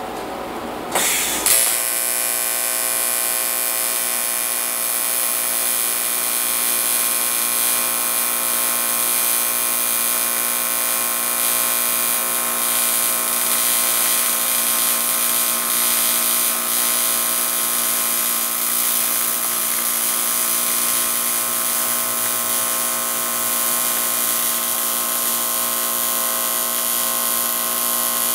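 AC TIG welding arc on aluminum from an Everlast PowerTIG 210 EXT, struck about a second in and then buzzing steadily with a high hiss.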